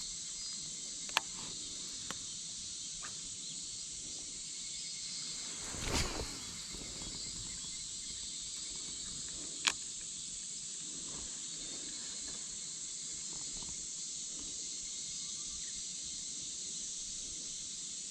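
Outdoor ambience with a steady high-pitched insect drone, a few sharp clicks scattered through it, and a brief louder rustle about six seconds in.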